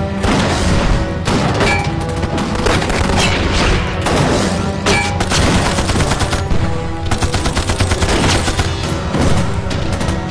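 Film battle soundtrack: rapid, dense gunfire from many guns with occasional booms, layered over background music.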